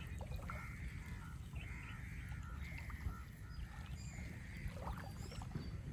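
Faint birds calling at a distance, a string of short calls every half second or so, over a steady low rumble.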